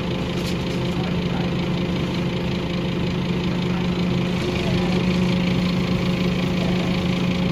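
Scania OmniCity bus's diesel engine heard from inside the passenger saloon, running with a steady low hum that grows a little louder about halfway through.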